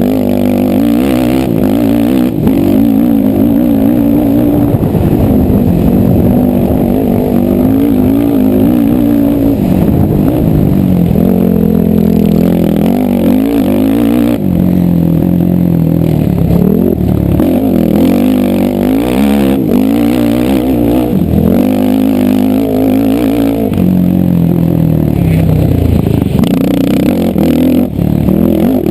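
ATV (quad) engine being ridden hard off-road, its pitch repeatedly rising and falling as the throttle is opened and closed.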